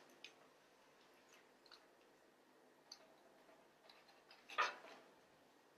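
Beef blood dripping from a vacuum package into a stainless steel pan: a few faint, scattered drips and ticks, with one louder brief noise about four and a half seconds in.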